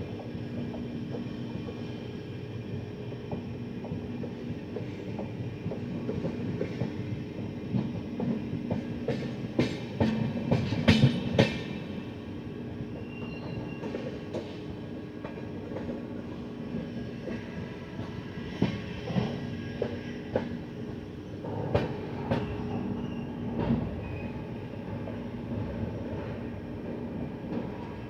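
Mangala Lakshadweep Express passenger train running along the track, heard from aboard: a steady rumble of wheels on rail. Clusters of sharp wheel clacks and knocks come about ten seconds in, the loudest part, and again around twenty seconds in.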